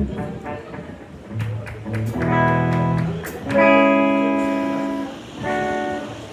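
Guitar strumming a few chords, the loudest left to ring for about a second and a half, after a couple of low plucked notes. It is being played so the guitar can be heard in a stage monitor during a monitor check.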